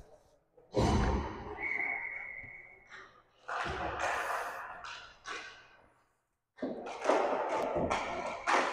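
Dull thumps and knocks, in three separate bursts, the first with a heavy low thud, and a single steady high tone held for about a second and a half just after it.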